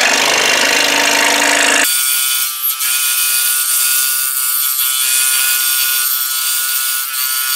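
Scroll saw running, its fine blade stroking up and down as it cuts a pattern out of thin masonite. The sound changes about two seconds in, from a rougher rush to a steady hum with a hiss of cutting.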